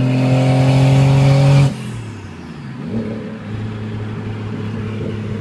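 Turbocharged 1JZ straight-six in a Toyota Cressida accelerating under load, its note rising in pitch, then dropping off suddenly under two seconds in. It then runs steadily at a lower note, with a brief dip and rise about three seconds in. The owner says it now runs with no boost leaks or misfires.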